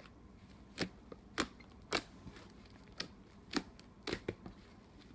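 Slime being squeezed and played with, giving sharp clicking pops at irregular intervals, about seven in five seconds.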